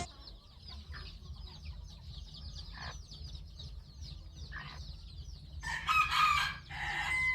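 Chickens calling: a few short clucks, then a rooster crowing about six seconds in, with a second call just before the end, over a steady high-pitched twitter of many small calls.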